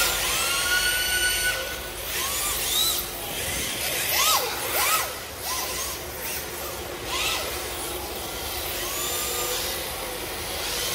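Several electric RC drift cars running together, their motors whining up and down in pitch over and over as they are throttled on and off through the drifts, with brief hisses of tyres sliding on a smooth concrete floor.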